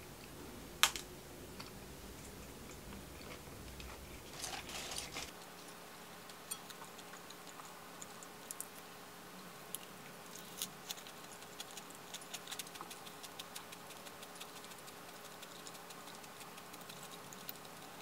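A person eating a lettuce-leaf wrap up close: small, crisp chewing crunches scattered through, with one sharp click about a second in and a short rustling stretch around four to five seconds in.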